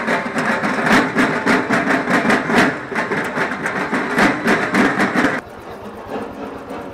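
Fast, steady rhythmic percussion at about four beats a second. It drops sharply in loudness about five and a half seconds in, then carries on faintly.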